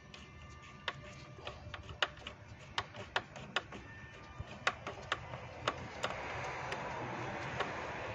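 Ratchet wrench clicking in short, irregular runs of sharp ticks as the throttle body's fasteners are backed off. A steady hiss rises about six seconds in.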